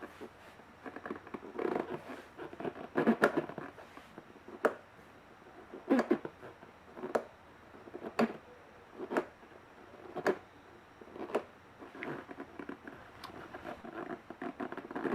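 Stock rigid-type motorcycle brake disc clacking on its mounting pins as it is rocked by hand. Sharp single clicks come about once a second, with quicker rattling bursts near the start and the end. The play causing it is a fault, since a rigid-pin disc should have none.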